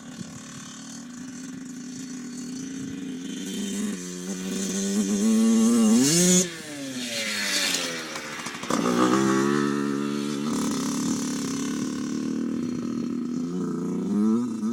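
Two-stroke dirt bike engine revving up to a loud peak about six seconds in, then easing off. It picks up again near nine seconds and runs fairly steadily.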